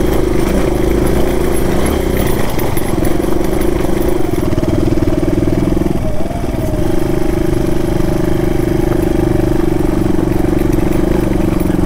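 Single-cylinder dual-sport motorcycle engine running steadily under way, with a brief dip in the engine note about six seconds in.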